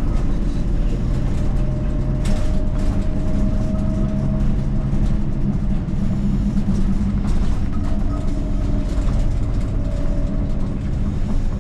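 Bus engine and road noise heard from inside the cabin while driving: a steady low rumble with a faint whine that slowly rises and falls in pitch, and a few brief rattles.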